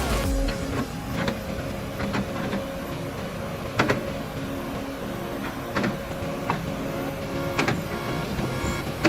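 A machine's motor running steadily, with a few sharp knocks or clacks at irregular intervals.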